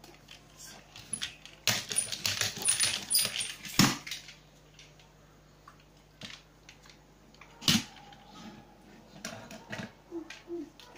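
Small plastic toys clattering and knocking on a wooden shelf top as a child handles them: a quick flurry of clicks and knocks in the first few seconds, one louder knock about three quarters of the way through, and scattered small taps.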